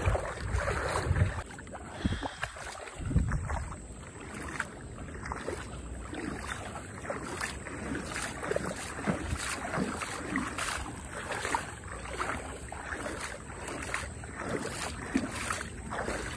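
Shallow muddy water splashing and sloshing in irregular strokes as a seine net is dragged through it and people wade alongside.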